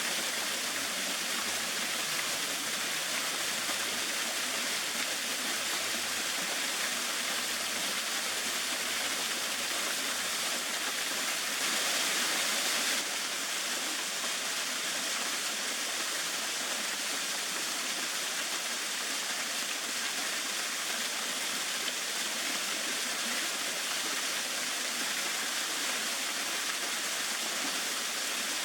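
Kannon Falls waterfall rushing, a steady, even roar of falling water that swells slightly for about a second midway through.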